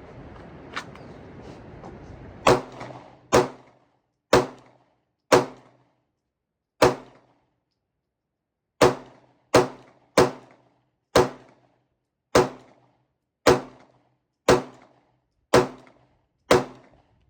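A .40-calibre Glock 23 pistol fired fourteen times at about one shot a second, with a few short pauses, each shot sharp and loud with a brief echo: one full magazine emptied.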